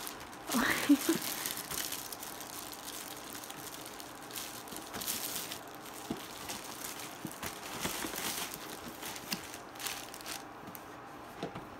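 Clear plastic wrapping crinkling and crackling in irregular bursts as it is torn off a microphone box and crumpled by hand.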